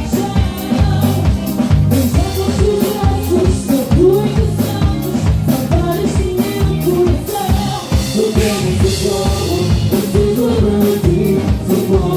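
A live band playing an instrumental passage of the song: a steady drum-kit beat and bass under a repeating melodic lead.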